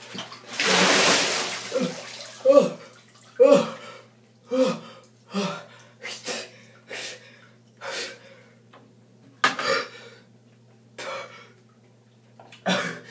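A bucket of ice water is dumped over a person sitting in a bathtub full of ice, splashing down for about a second and a half. Short loud gasps and yelps at the cold follow, then heavy breaths about once a second.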